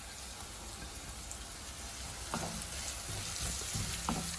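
Chopped onions, chili and shallots sizzling in hot sunflower oil in a pan. From about two seconds in, a stirring utensil knocks and scrapes against the pan every half second or so.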